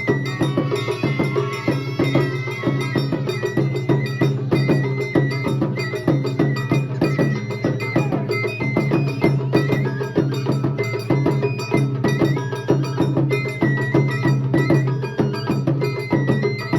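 Japanese festival music: rapid metallic clanging and wooden percussion with drums under a high melody that steps from note to note.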